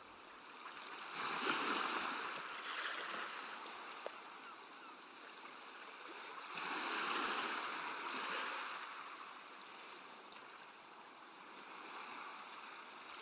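Water sloshing inside the drum of an industrial washing machine as it turns, swelling twice, a few seconds apart.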